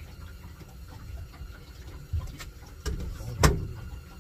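Steady low rumble with a few sharp knocks, the loudest about three and a half seconds in.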